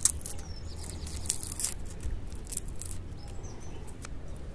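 Dry crackling and rustling as hands pull dead leaves and roots apart while separating Echeveria elegans offsets. A small bird chirps twice in the background: a short falling note followed by quick repeated high notes.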